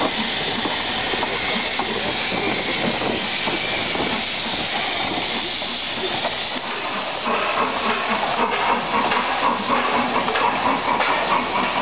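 Narrow-gauge train running along the line, its wheels clicking over the rail joints under a steady hiss. The sound grows louder about seven seconds in.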